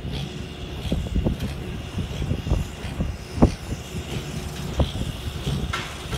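Kubota M7040 70 hp tractor's diesel engine running steadily under load while it pulls a New Holland BC5070 Hayliner small-square baler through a windrow. Short mechanical knocks come and go at uneven intervals over the engine, the loudest about halfway through.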